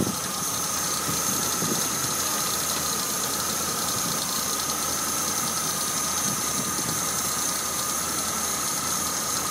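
Chevrolet 350 L82 small-block V8 with a Rochester Quadrajet four-barrel carburetor idling steadily after a carburetor tune-up, which the owner judges normal. A steady high whine runs alongside the engine.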